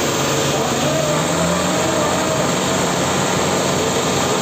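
Two tractor diesel engines running hard at full throttle under heavy load as the chained tractors pull against each other in a tug-of-war, a steady, loud sound.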